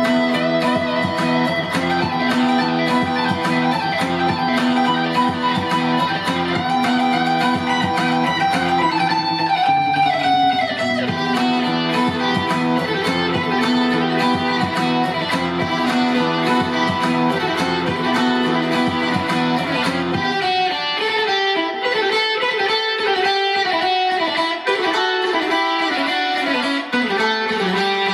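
Guitar-led music playing steadily. About two-thirds of the way through, the bass drops out and the guitar carries on in a lighter, pulsing passage.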